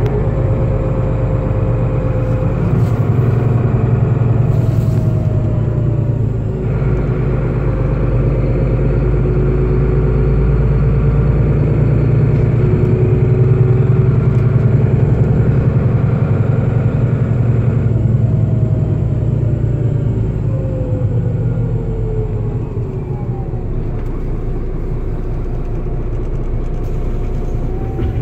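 Solaris Urbino 12 city bus driving, heard from inside: a steady low drone from the drivetrain, with a whine that rises and falls as the bus speeds up and slows. The whine falls away and the noise eases over the last few seconds as the bus slows nearly to a stop.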